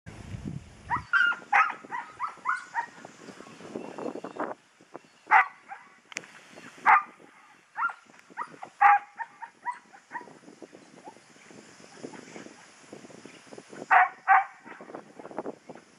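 Working dog barking at cattle as it works the mob: a quick run of short, sharp barks in the first few seconds, then single barks every second or two, and a close pair near the end.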